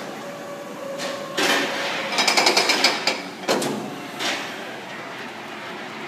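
Suspended coaster train moving through the station: a series of sharp metallic clanks with a rapid ringing clatter about two seconds in, then a couple more single clanks.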